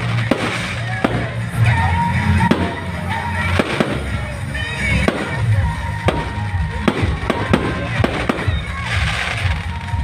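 Fireworks display going off: a rapid run of sharp bangs and crackles, one to several a second, with music playing underneath.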